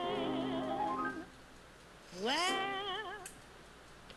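Background music: a woman's jazz vocal recording, sliding up into long held notes with vibrato over soft accompaniment. The voice breaks off about a second in and comes back with a rising slide just after two seconds, then fades.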